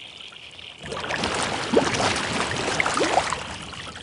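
Water sloshing and gurgling, starting about a second in and fading near the end.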